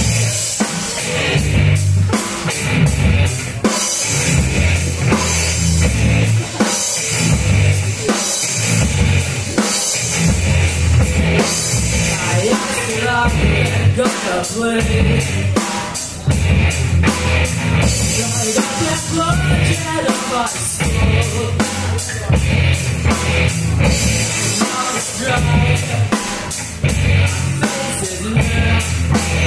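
Live rock band playing a heavy, driving song: drum kit, electric bass and guitar, with a singer's vocals over them.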